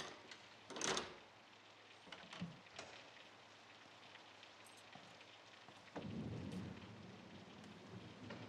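Rain falling steadily, with a loud short crack about a second in and a low rumble of thunder setting in about six seconds in.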